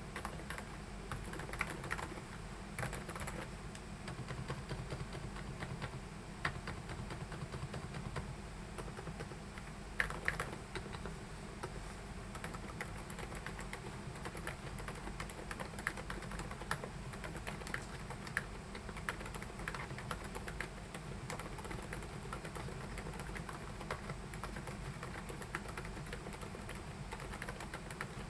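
Typing on a Keychron K10 Ultra mechanical keyboard: a continuous stream of quick key clacks, with a few louder strikes now and then.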